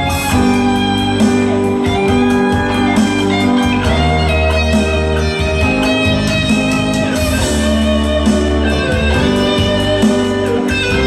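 Instrumental break of a sung ballad: band music led by guitar over held bass notes.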